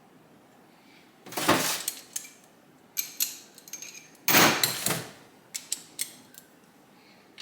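Metal tools and engine parts being handled during a motorcycle engine teardown: two short bursts of scraping and clattering about three seconds apart, with scattered sharp clicks between and after them.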